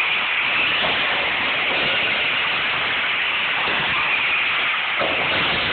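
Radio-controlled off-road buggies running on an indoor dirt track: a steady rushing noise with no clear engine note.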